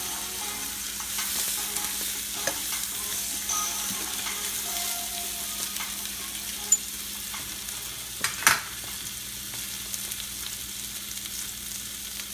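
Spinach and butter sizzling in a frying pan while being tossed with metal tongs, with light scraping clicks and one sharper clack about eight seconds in.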